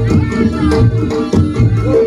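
Reog gamelan accompaniment playing: steady drumming under repeated held pitched notes and sharp percussive strokes.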